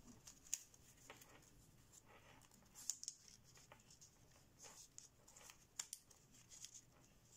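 Faint rustle and crinkle of thin kami origami paper being folded and creased by hand, with a few sharper paper crackles, the loudest about three seconds in.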